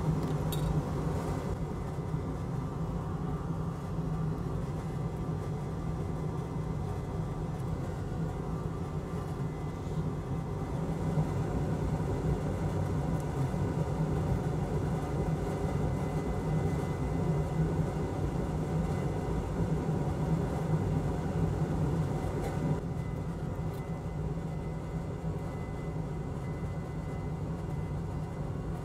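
Steady low machine hum with a faint noisy background. A faint, thin high tone joins it over the last several seconds.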